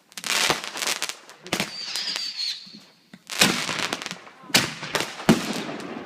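Consumer fireworks going off: a crackling hiss, a high whistle lasting about a second, then three sharp bangs over the second half.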